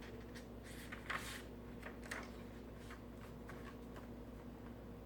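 Soft paper rustling and handling of a picture book, the loudest rustle about a second in, as a page is turned. A low steady hum lies underneath.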